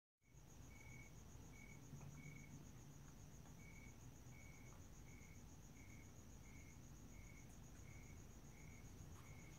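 Faint night crickets: a steady high-pitched trill with a lower chirp repeating about every two-thirds of a second, over a low background hum.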